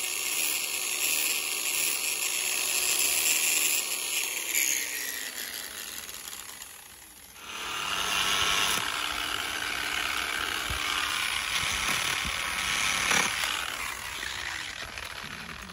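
Angle grinder with a polishing pad running at high speed. It winds down between about four and seven seconds in, starts up again sharply, runs steadily, and begins winding down near the end.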